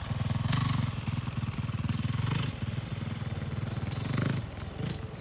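Yamaha 450 four-stroke single-cylinder dirt bike pulling away under throttle, its pulsing exhaust note coming in surges. The first long push eases off about two and a half seconds in, and a second shorter burst follows about four seconds in before the engine note drops lower as the bike gets farther off.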